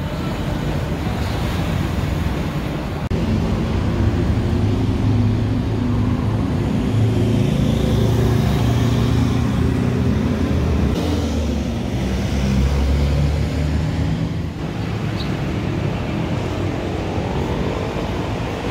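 Road traffic on a busy multi-lane road: cars and vans passing, with a low engine rumble that swells and fades as vehicles go by. For the first three seconds or so, a front-loading coin-laundry washing machine runs instead.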